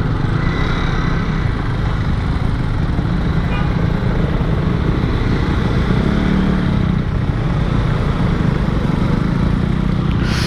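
Two-stroke motorcycle under way: the engine running steadily beneath heavy wind rush on the microphone, with a short hiss near the end.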